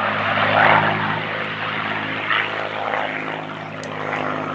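Supermarine Spitfire flying overhead, its piston engine and propeller droning steadily. The sound fades a little past the middle and then builds again.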